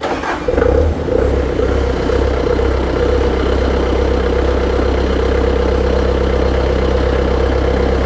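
Bobcat 5600 Toolcat's Kubota diesel engine cranking on the key and catching within about a second, then settling into a steady idle. It starts normally with a known-good test controller panel fitted, confirming that the original controller had failed.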